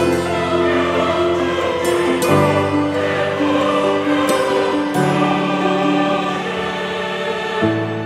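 Background music: sustained chords that change about every two and a half seconds.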